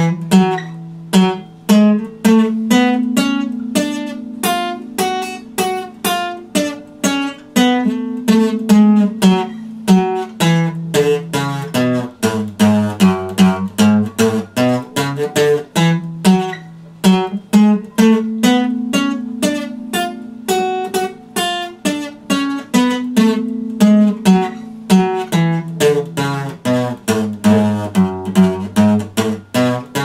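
Acoustic guitar played solo: chords picked and strummed in a steady rhythm, with a bass line that moves through a repeating chord progression.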